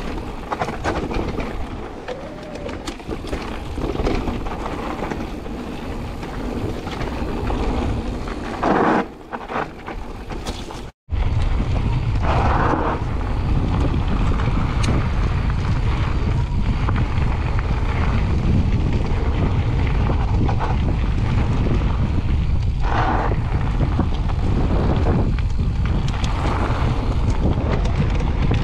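Mountain bike riding fast down a gravel trail: tyres rolling over loose gravel and the bike rattling, with wind on the camera microphone. About a third of the way in the sound cuts out for an instant, then a heavy, steady low wind rumble on the microphone takes over.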